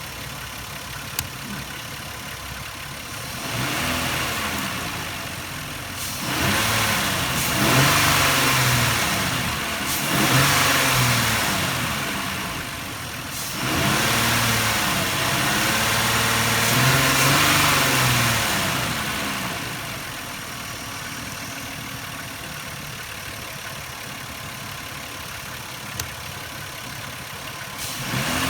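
2000 Nissan Maxima's V6 engine idling, then revved up and let fall back about five times in close succession before settling back to a steady idle.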